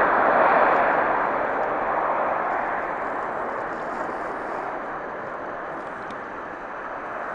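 Jet airliner engines at high thrust: a loud rushing noise that peaks about half a second in, then fades steadily.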